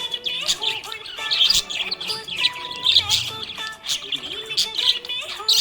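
Budgerigars chirping and warbling: a fast, continuous stream of short, high chirps.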